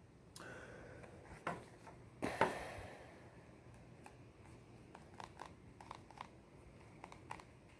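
Faint handling of tarot cards: a few soft slaps and scrapes, the loudest a little over two seconds in, then scattered light clicks.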